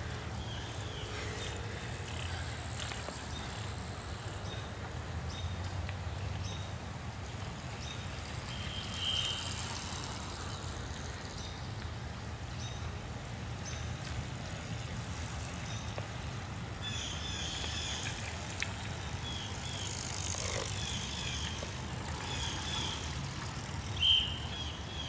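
Wind and road rumble on a camera riding with a pack of racing bicycles, a steady low rush, with short high chirps scattered through it, more often in the last third, and one sharper chirp near the end.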